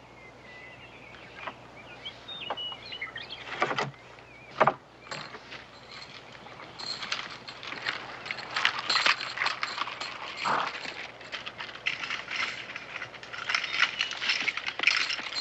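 Two sharp wooden knocks as the stocks are opened, then iron chains on a prisoner's wrists clinking and jangling with his steps as he is led away.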